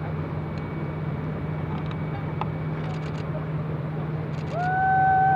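A steady low engine hum, and near the end a single loud horn blast about a second long, its pitch sliding up as it starts and down as it stops.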